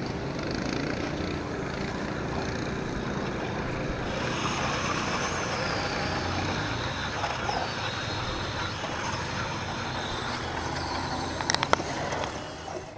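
Snowmobile engine idling steadily. A louder hiss joins about four seconds in, and a few sharp clicks come near the end.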